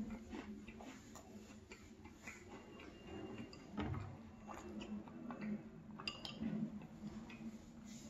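Close-up mouth sounds of eating yogurt: many small wet clicks and lip smacks. A metal spoon scrapes and lightly clinks against a ceramic bowl, with a couple of short ringing clinks about six seconds in.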